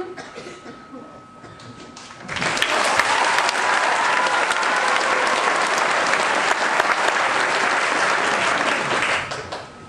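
Audience applauding, breaking out about two seconds in and dying away near the end.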